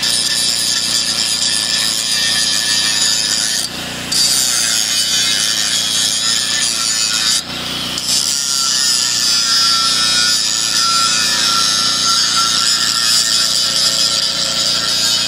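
Corded angle grinder grinding steel square tubing, a steady high whine and rasp of the disc on the metal. It drops away briefly twice, about four and seven and a half seconds in.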